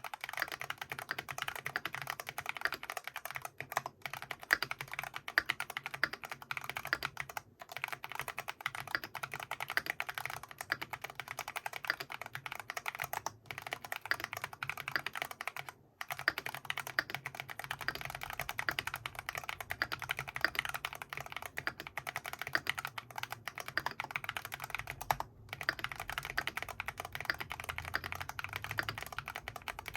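Fast, continuous typing on an FL·ESPORTS GP108 mechanical keyboard with Feker Holy Panda tactile switches: a dense stream of keystroke clacks, broken by a few brief pauses.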